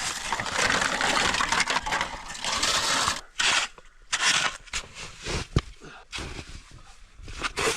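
Snow being dug and scraped with a shovel in gusting blizzard wind: a long rush of noise, then a run of separate scrapes and crunches with a sharp knock in the middle.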